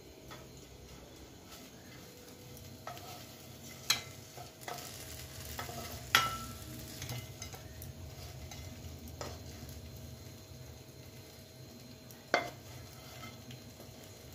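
Wooden spatula scraping and knocking in a frying pan as fried chicken pieces are pushed out onto a plate. A handful of sharp knocks are spread through it over a steady low hum.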